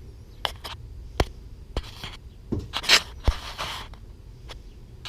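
Handling noise: scattered sharp clicks and taps with a few short scraping rubs, over a low steady hum.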